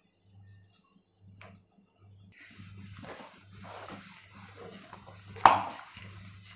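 Wooden rolling pin rolling out floured paratha dough on a stone countertop: a soft, uneven back-and-forth rustle that starts a couple of seconds in after a near-quiet stretch, with one sharp knock of the pin on the counter about a second before the end.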